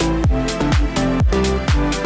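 Electronic dance music with a steady kick drum about twice a second under held synth chords.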